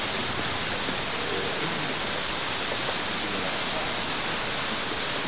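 Steady rushing of a river's flowing water, an even wash of noise without breaks.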